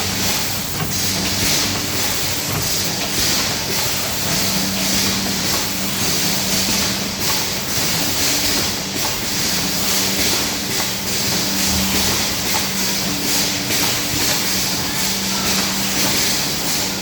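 Rotary standing-pouch packing machine for cooking oil running: a steady hum under a constant hiss, with a continual stream of short mechanical clicks and clacks.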